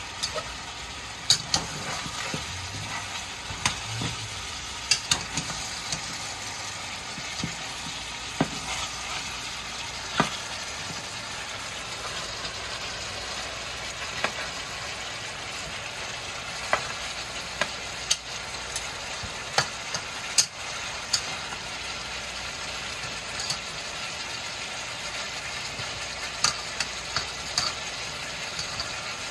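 Turkey neck pieces sizzling as they sear in a pot, with sharp clicks and scrapes at irregular intervals from a slotted metal spatula stirring and turning them against the pot.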